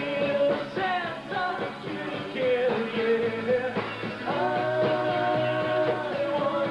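Live rock band playing with guitars and drums, and singing over them; a long note is held for a couple of seconds in the second half.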